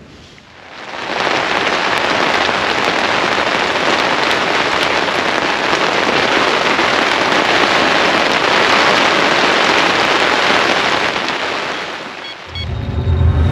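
Heavy rain drumming steadily on the fabric of a boat tent. It swells in at the start and eases off near the end, when a deep low rumble rises.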